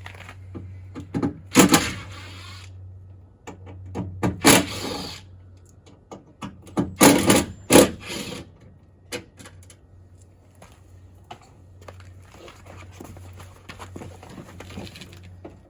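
Clunks, clicks and rattles of a Ford Excursion's door lock actuator and linkage being worked by hand inside the door cavity. There are three louder bursts of knocking, with scattered lighter ticks between them.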